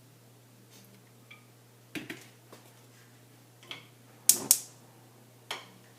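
Kitchen clatter at the stove as a frying pan and oil are handled: a few sharp clicks and knocks, the loudest two close together about four seconds in, over a faint steady hum.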